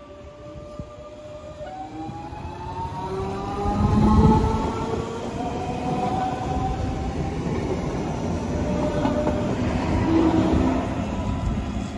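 A DB class 424/425/426 electric multiple unit running, its traction equipment giving a whine of several rising tones over the rumble of the train. The rumble is loudest about four seconds in and swells again near the end.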